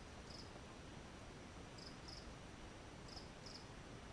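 A cricket chirping from inside a ceiling fan and ceiling: faint, short, high chirps, a single one and then pairs about every second and a half, over a low steady hiss.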